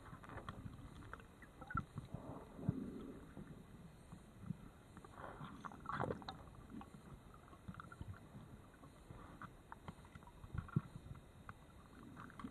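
Faint, muffled underwater noise from a dive: scattered knocks and clicks with a few short rushes of noise, sharpest knocks about three and eleven seconds in.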